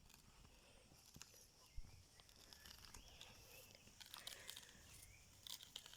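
Near silence, with faint scattered clicks and taps and a few faint short chirps.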